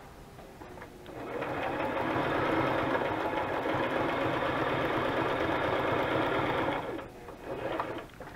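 Sewing machine stitching in one steady run of about six seconds, starting about a second in, then a short second burst of stitches near the end.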